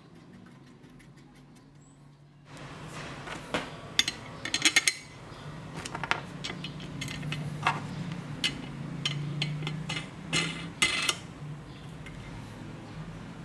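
Small metal parts clinking and tapping as they are handled and fitted together: about a dozen sharp clinks, with a quick cluster of them a few seconds in, over a low steady hum that comes in after about two and a half seconds.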